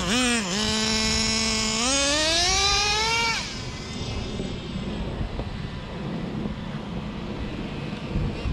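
Traxxas Jato 3.3's small two-stroke nitro engine idling high with a few quick throttle blips, then revving up in a long rising whine for about a second and a half. The engine note cuts off suddenly about three and a half seconds in, leaving faint wind and street noise.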